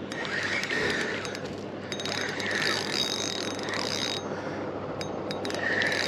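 Fishing reel clicking and whirring steadily as a hooked fish is played in.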